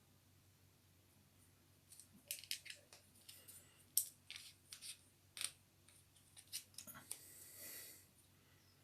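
Faint scattered clicks and ticks of small objects being handled, starting about two seconds in after a near-silent start, with a brief faint rustle near the end.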